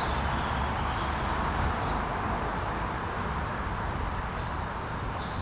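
Steady rumble of road traffic, with short, high-pitched chirps from small birds scattered over it.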